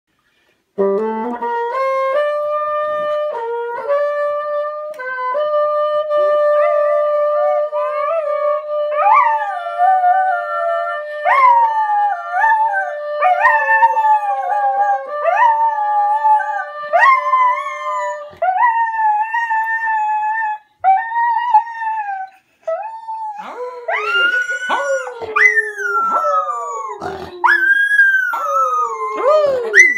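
A bassoon plays long held notes while a dog howls along, its howls sliding up and down in pitch over the notes. About two thirds of the way through the held notes stop and only the wavering howls carry on.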